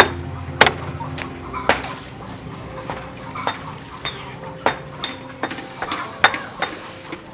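Stone pestle knocking in a stone mortar, sharp strikes about every half second, then lighter metal clinks as raw ducks are laid on a wire grill rack.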